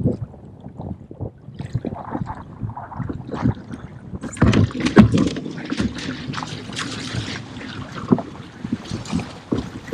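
Choppy water knocking against a kayak hull. About four seconds in, loud splashing starts as a hooked halibut thrashes at the surface beside the kayak, and it lasts until near the end.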